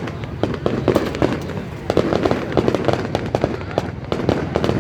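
Aerial fireworks display going off: a dense, irregular run of bangs and crackles, several reports a second, with no pause.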